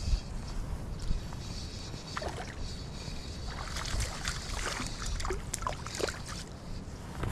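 A small hooked white bass splashing at the water's surface as it is reeled in, a flurry of short splashes in the second half.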